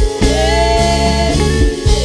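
Worship music: a congregation singing a hymn together over a live band, with sustained bass notes, guitar and regular drum strokes underneath.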